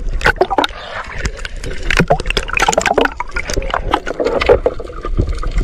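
Sea water splashing and gurgling around a camera dipping in and out of the surface, with a dense run of sharp splashes. Near the end the sound turns duller as the camera goes under.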